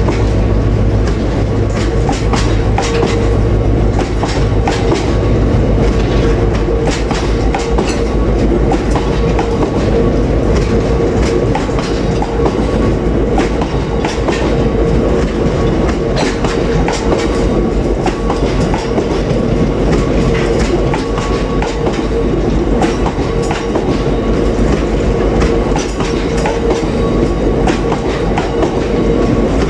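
Freight train of bogie box wagons rolling past close by, the wheels clattering over the rail joints in a continuous clickety-clack over a steady rumble and hum.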